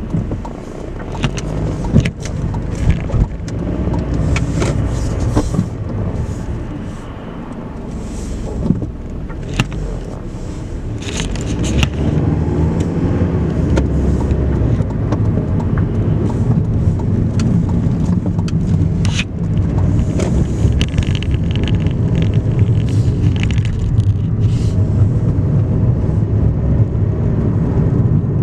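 Road noise inside a moving car's cabin: a steady engine and tyre rumble that grows louder about twelve seconds in, with a few sharp knocks in the first dozen seconds.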